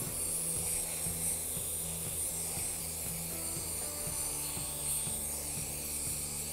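Aerosol can of throttle body cleaner hissing as it sprays through a straw into a throttle body, over background music with a steady beat.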